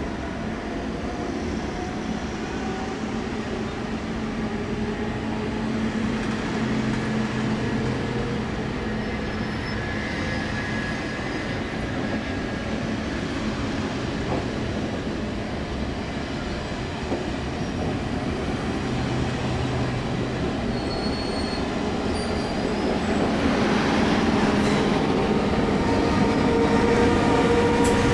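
Electric double-deck passenger trains rolling slowly through a station: a steady rumble of wheels on rail with a low electric hum and thin, high wheel squeals now and then. Near the end an SBB Re 460 electric locomotive comes closer, and the sound grows louder.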